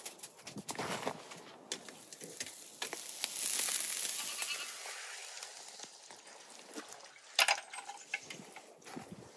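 Sturgeon and potato kebabs sizzling on skewers over charcoal, loudest around the middle, among scattered small clicks. A single sharp knock, the loudest sound, comes about two seconds before the end.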